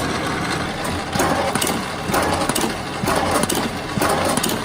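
High-speed paper hole-drilling machine running: a steady motor hum with a swell of louder noise about once a second.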